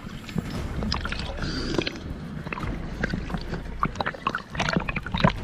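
Water sloshing and gurgling against a boat hull, heard from a camera at the waterline, with many small irregular knocks and clicks over a low rumble.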